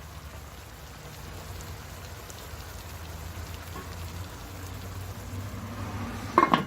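Potatoes cooking in a covered electric pan: a steady hissing sizzle over a low hum. A short, loud clatter comes just before the end.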